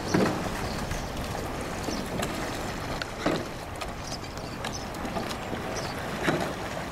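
Sprint kayak paddles splashing into the water under a steady rush of water and air, with a few louder splashes about three seconds apart.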